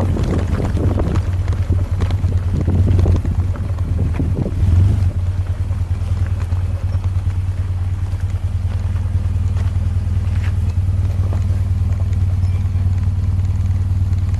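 2005 BMW R1200GS boxer-twin engine running as the bike rolls slowly over gravel, with crunching and rattling noise for the first five seconds or so, then a steady low engine note.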